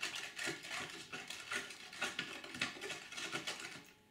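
A spoon stirring borax into water in a plastic container, with a run of irregular clicks and scrapes against the container that stops just before the end.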